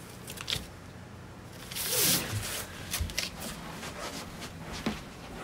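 Flattened cardboard shipping boxes being slid out of a stack and handled: short rustles and clicks, with a louder scraping rustle about two seconds in.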